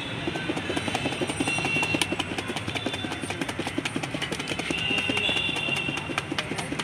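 Cut fruit and spice mix shaken hard in a closed plastic jar: a quick, even rattle of several shakes a second, with street traffic noise under it.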